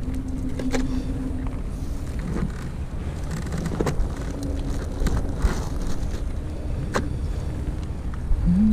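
Low rumble of wind on the microphone, with a faint steady hum underneath. A few sharp clicks and some rustling come through as hands dig in a bait bucket holding a plastic bag and crabs.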